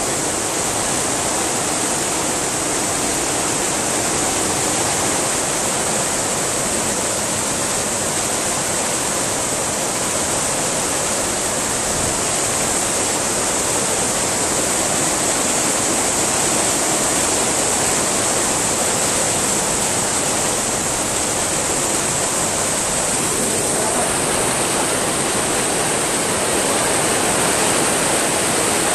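Heavy rain pouring down in a steady, dense hiss of drops, heard from under an awning.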